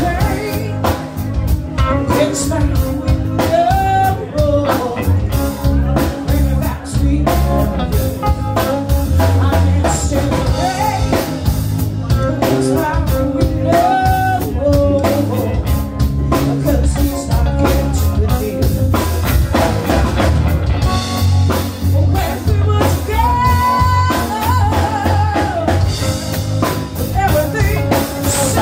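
Live band playing: a woman singing over electric guitar, electric bass and a drum kit.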